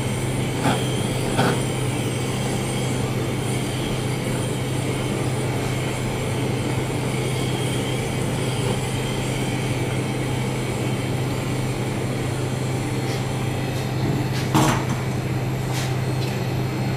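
Steady hiss of a handheld gas blowtorch browning Italian meringue, over the constant hum of kitchen ventilation, with a few light knocks near the start and a sharper knock near the end.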